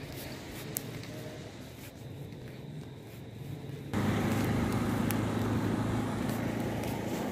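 Roadside traffic noise at night: a steady hiss of vehicles on the road. About four seconds in it turns abruptly louder, with a strong low rumble.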